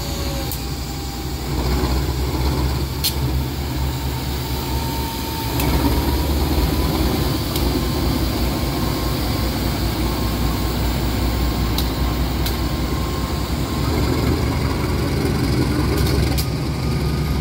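Diesel locomotive engine idling close by, a steady deep running that steps louder about two seconds in and again about five and a half seconds in, with a faint steady whine above it.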